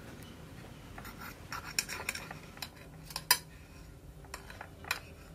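A knife slicing through a soft baked cake, its blade scraping and clicking against the ceramic plate beneath in a series of short, sharp sounds, the loudest a little past halfway.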